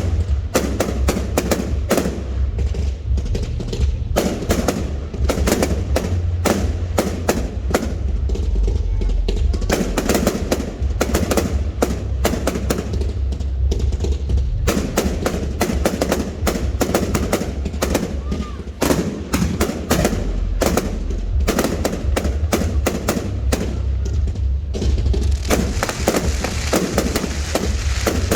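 Fireworks display: a rapid, continuous string of bangs and crackles from bursting aerial fireworks over a steady low rumble.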